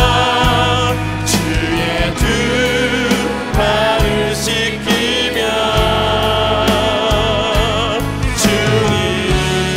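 A contemporary worship band playing a slow song. An Alleva-Coppolo LG5 five-string electric bass holds low notes that change every second or two, under a sustained melody with wide vibrato.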